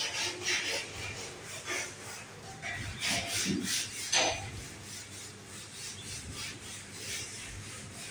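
Repeated rubbing strokes of a cloth scrubbing a metal shelf rack, fainter in the second half.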